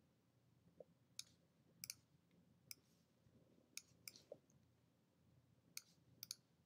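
Faint computer mouse clicks: about ten short, irregular clicks, some in quick pairs, as elements are selected and dragged in a website editor.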